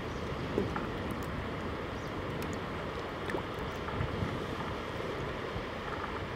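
Wind on the microphone over small river waves lapping, with a few light splashes and taps.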